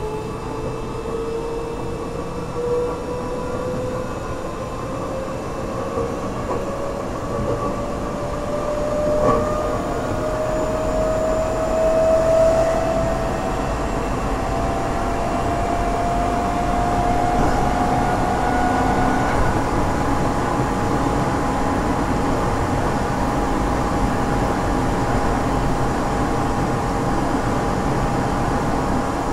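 Tokyo Metro 8000 series chopper-controlled train heard from inside the car, running with a steady rumble. A whine rises steadily in pitch as the train gathers speed, then levels off into a steady tone after about nineteen seconds. One brief knock comes about nine seconds in.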